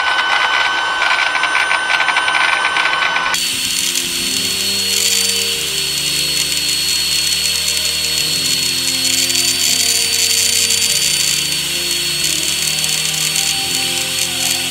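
Electric drill spinning a felt polishing wheel with a steady motor whine, while the angle grinder's steel spindle shaft is held against the wheel to polish it. About three seconds in the sound turns to a higher, hissier whine, and background music with slowly changing low notes joins it.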